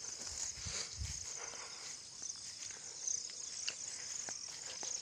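Insects trilling steadily in a continuous high-pitched chorus, with the rustle and soft thuds of footsteps through grass and brush, a few heavier thumps in the first second or so.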